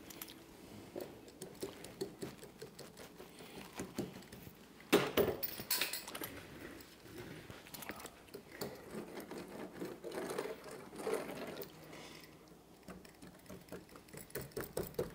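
Metal fiberglass laminating roller being worked over wet resin-soaked glass cloth, a run of small rapid clicks and rattles that is loudest about five seconds in, as the cloth is rolled down and air bubbles are worked out of the layup.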